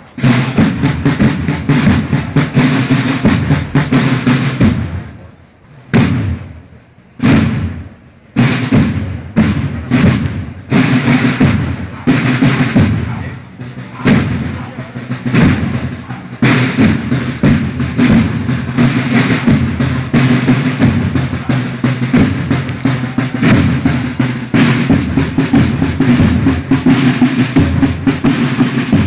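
Marching band drums, snare and bass drums, beating a steady processional march rhythm. The drumming stops briefly twice, about five and seven seconds in.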